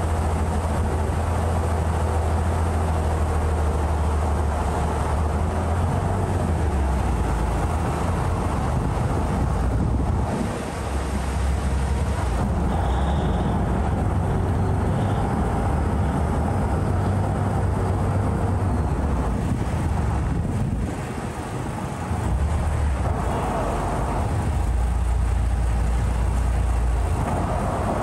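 Saen Saep canal express boat's engine running loudly and steadily, with a dense rush of water and wind over it. The engine note eases off briefly twice.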